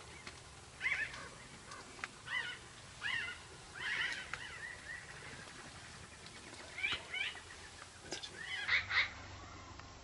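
Wild birds calling outdoors in short chirps, a dozen or so scattered irregularly, some in quick pairs.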